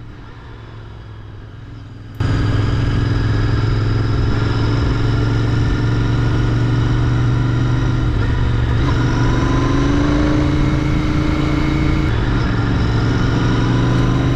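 Royal Enfield Interceptor 650's parallel-twin engine and exhaust running under way. It is quieter for the first two seconds, then comes in suddenly loud and steady, with the pitch rising as the bike pulls later on.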